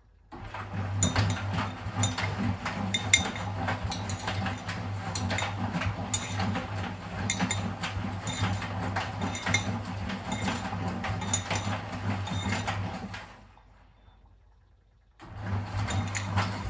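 Miele WS 5405 front-loading washing machine's drum turning, its motor humming under a busy clinking and knocking from the load of a jacket and trainers. About 13 seconds in the drum stops for a couple of seconds, then starts turning again, the usual reversing wash action.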